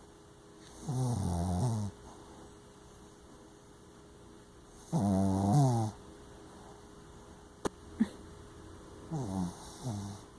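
Small shih tzu–Yorkshire terrier dog snoring while asleep: three long, pitched snores about four seconds apart, with two short clicks between the second and third.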